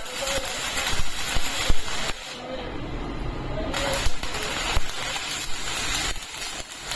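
Electric arc welding: the arc crackles and hisses with sharp pops, stops for about a second and a half around two seconds in, then strikes again.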